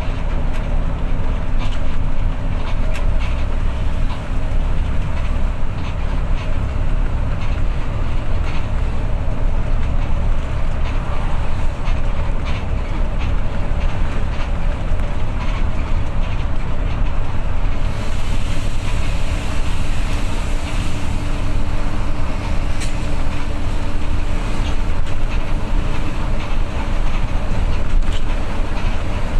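Intercity bus on the move: a steady low drone of engine and road noise, with occasional rattles and clicks. A higher hiss grows stronger about two-thirds of the way through.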